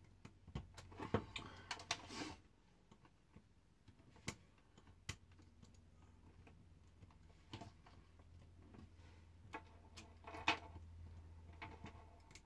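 Faint, scattered clicks and taps of metal tweezers on the small parts of an opened Tesco Hudl 2 tablet as its speaker connectors are pressed into place, with a few brief bursts of handling noise and a low steady hum underneath.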